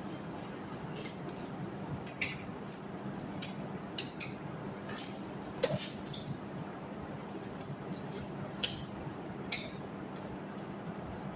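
Light clicks and clinks of small objects being picked up and set down, about a dozen at irregular intervals with one louder knock midway, over a steady background hiss. This is nursing equipment being laid out.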